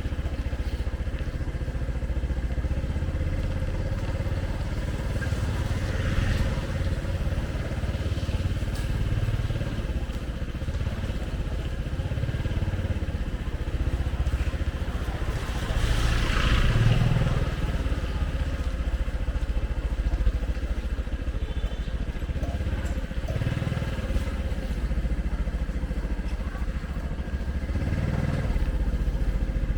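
Street traffic with motorbikes: a steady low rumble of engines, with a couple of brief higher sounds about 6 and 16 seconds in.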